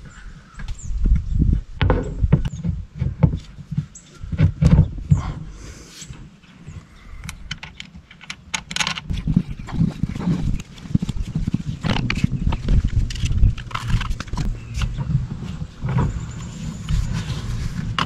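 Irregular clunks, knocks and clicks of tools and metal parts being handled during hand work on a boat's steering gear.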